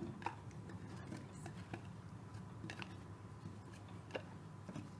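Faint scattered clicks and soft taps of quartered apples being handled off a plate and pushed into a raw piglet's belly cavity, over a low steady hum.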